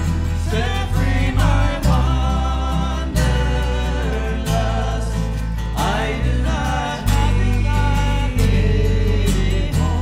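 Live band music: a strummed acoustic guitar over a steady, heavy bass line, with a sliding melody line on top.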